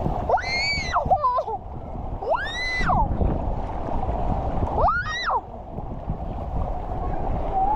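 Children's high-pitched shrieks, four separate rising-and-falling cries, over a steady wash of splashing water and crowd noise.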